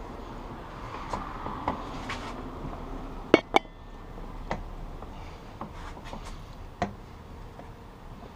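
Small metal parts and hand tools clinking and tapping against a 1975 Honda CB750 engine case while the shift drum's retaining tab is fitted onto its bolt: scattered light clicks, with two sharp clinks close together a little over three seconds in.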